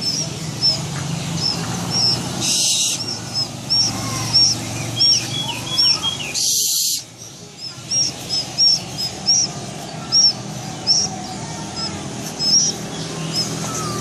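A small bird chirping in short high notes, one every half second or so, with a quick run of lower chirps about five seconds in. There are two brief hisses, about two and a half and six and a half seconds in.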